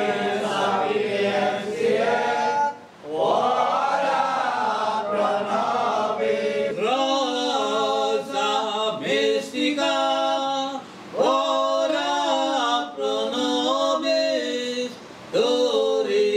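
A group of men and women singing a hymn together, unaccompanied, in phrases of a few seconds with short pauses for breath between them.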